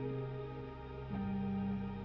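Background music of slow, held notes, moving to a new chord about a second in.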